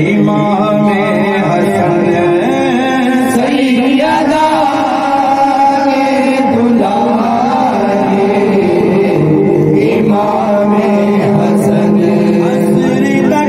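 A manqabat, a devotional poem, chanted by a solo voice in long, wavering sung lines over a steady low drone.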